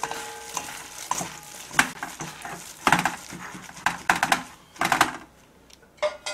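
Seasoned beef and vegetables being mixed by a gloved hand and a wooden spoon in a stainless steel bowl: wet squishing, with the spoon knocking and scraping against the metal bowl in several sharp strokes. It goes quieter near the end.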